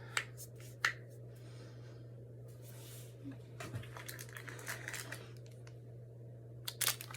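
Light handling noises: a few sharp clicks near the start, soft rustling in the middle and a cluster of clicks near the end, over a steady low electrical hum.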